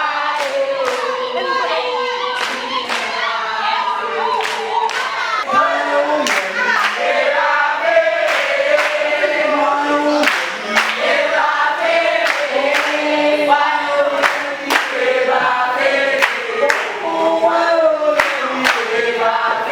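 A choir singing held notes in harmony over a steady beat of sharp strokes, about one or two a second.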